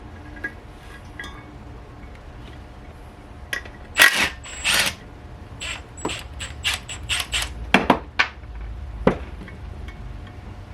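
Metal tools and parts clinking and clacking against each other, about a dozen irregular sharp knocks, some with a brief high ring, starting a few seconds in.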